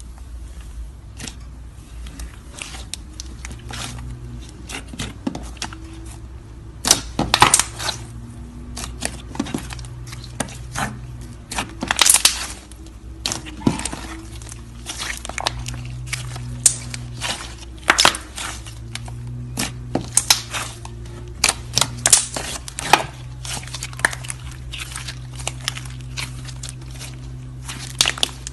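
Slime being poked, pressed and stretched, giving many sharp sticky pops and clicks in irregular runs, with a low steady hum coming and going underneath.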